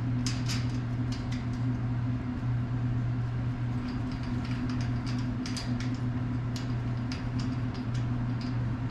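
A steady low hum runs throughout, with scattered light clicks and taps of small metal fence-latch hardware being handled as a bolt is fitted through the latch pieces.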